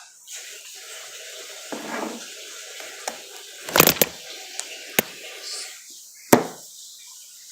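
Water running, starting abruptly and going steadily, with several sharp knocks and clatters over it, the loudest about four and six seconds in.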